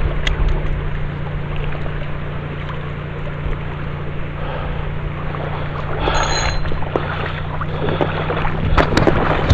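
A steady low motor hum under a wash of water and wind noise, with a brief high squeak about six seconds in.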